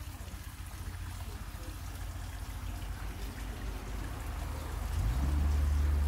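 Shallow stream trickling over stones, with a low rumble underneath that swells about five seconds in.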